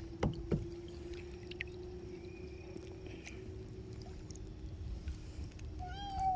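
Kayak on the water: faint splashing and lapping of water around the hull under a steady low hum, with two light knocks shortly after the start. A short high call sounds near the end.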